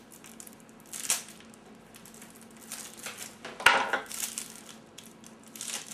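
A stack of trading cards in its plastic wrapping handled on a table: a few short crinkling, clacking strokes, the loudest a little before four seconds in.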